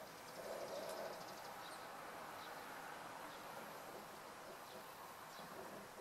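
Faint outdoor ambience: a steady background hiss with scattered short high chirps of small birds and a rapid high trill about a second in.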